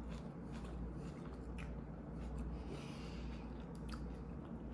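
Quiet eating sounds: a few faint clicks of food and fingers and a breath through the nose, over a low steady hum.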